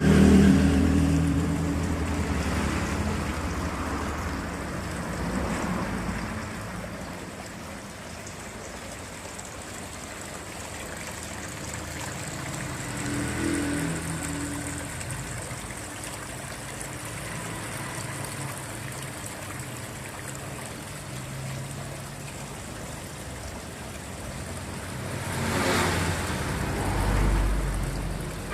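Water trickling steadily over a decorative waterfall, with road traffic passing: a vehicle engine is loudest at the start and fades away, and another vehicle swells past near the end.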